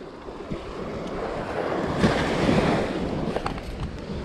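Surf washing onto the beach, with wind on the microphone. The wash swells to its loudest about two seconds in and then eases off.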